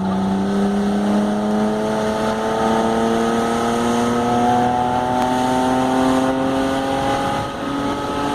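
BMW engine running under load, its pitch climbing slowly and steadily as the vehicle accelerates, with a brief dip in level near the end.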